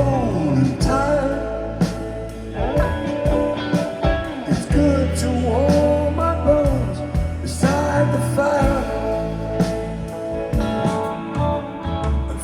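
A song with a singing voice, guitar, steady bass and light percussion, played back through hi-fi loudspeakers and picked up by a microphone in front of them.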